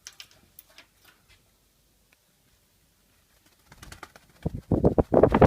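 Doves: a few faint clicks at first, then, about four seconds in, a loud burst of rapid, irregular low pulses.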